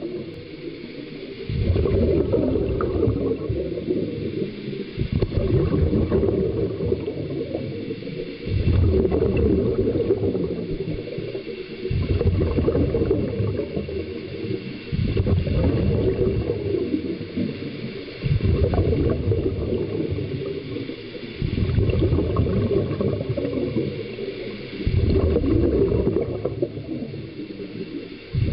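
Divers' breathing heard underwater: a surge of bubbling from a scuba regulator's exhaust with each exhalation, about every three to four seconds, with quieter gaps between breaths.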